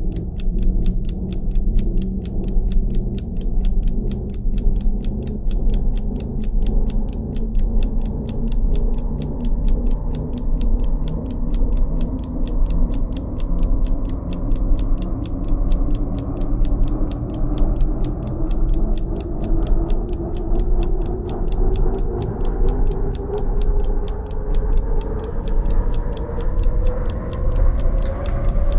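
Soundtrack of steady, even clock-like ticking over a low drone that pulses about once a second, with a tone that rises slowly in pitch throughout, building tension.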